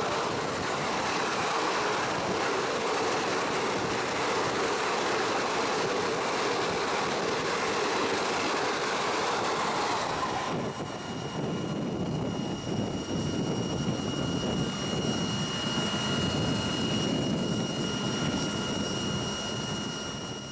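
Express passenger train passing at high speed on the opposite track, a loud rush of wheels and coaches that cuts off abruptly about ten seconds in as the train clears. After that, a quieter rumble with a steady high whine.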